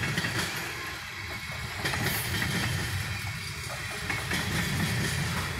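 Freight train of tank cars rolling past: a steady low rumble of steel wheels on the rails, with irregular clicks and clacks throughout.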